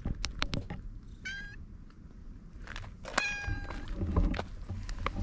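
Cat meowing twice, a short high meow about a second in and a longer one about three seconds in, with scattered clicks and a few low thumps.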